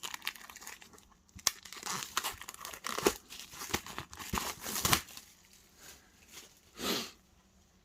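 Plastic wrapping crinkling and tearing in irregular handfuls as it is pulled off board game pieces, followed by one softer rustle near the end.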